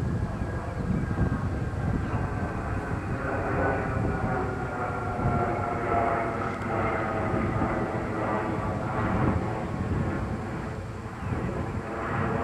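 An engine drones past, a steady hum whose pitch falls slowly over several seconds, over a steady low rumble.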